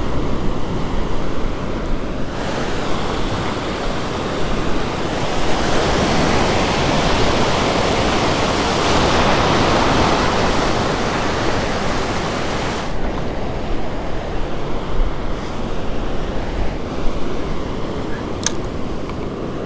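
Ocean surf breaking and washing up the beach, swelling to a louder wash about halfway through and easing off again.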